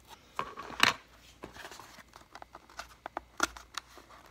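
Cardboard shipping box being opened and handled: irregular sharp clicks and scrapes, the loudest just under a second in.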